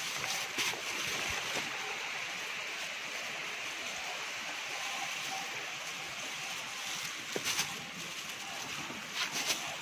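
A river rushing steadily, an even hiss of flowing water, with a few brief knocks about half a second in, around seven and a half seconds, and again near the end.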